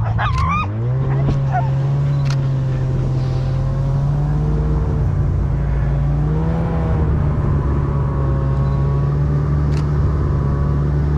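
Snowmobile engine revving up in the first second, then running steadily at an almost constant pitch. A dog yelps a few times right at the start.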